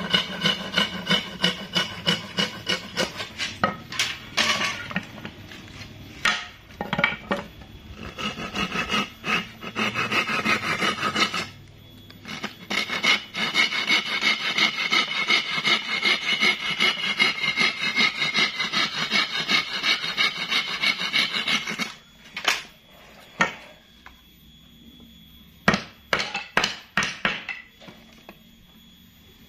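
A hand tool working hard wood in quick, repeated rubbing strokes, in three spells with short pauses between them. Near the end come a run of separate sharp knocks.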